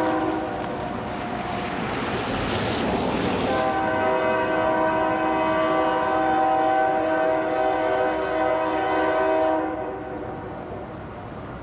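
Air horn of a BNSF GE C44-9W diesel locomotive blowing a chord: one blast fades out about two seconds in, then a second long blast starts after a short gap and holds for about six seconds before cutting off.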